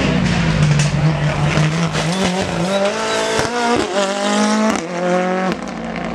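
Ford Fiesta rally car's engine at full throttle: a steady low drone, then revs climbing hard with quick upshifts as it passes close by around the middle.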